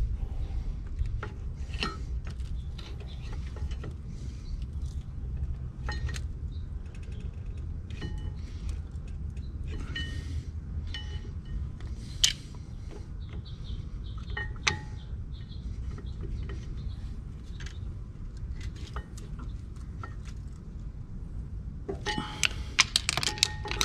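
Metal tools and brake parts clinking against a Brembo brake caliper, each knock ringing briefly, over a steady low rumble. A quick flurry of clinks comes near the end.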